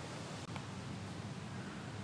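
Steady background noise, a low rumble under a hiss, with one faint click about half a second in.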